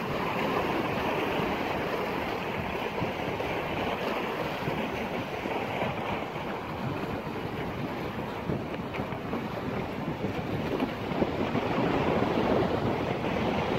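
Wind buffeting the microphone over choppy lake waves washing against the rocks of a stone breakwater, a steady rushing noise with no break.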